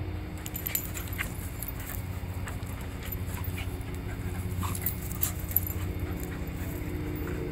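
Two dogs play-fighting: short dog noises and scuffling scattered through, over a steady low background noise.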